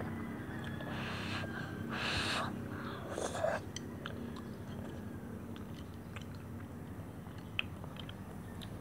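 A person eating noodles with chopsticks: three short slurps in the first few seconds, then quieter chewing with small clicks of wooden chopsticks against a plastic bowl.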